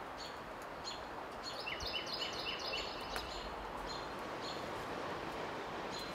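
Small birds chirping: short, high chirps repeating every half second or so, with a quicker run of about five lower chirps about two seconds in, over steady outdoor background noise.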